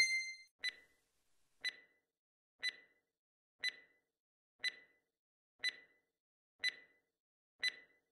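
Countdown timer sound effect ticking once a second, eight short sharp ticks in a row.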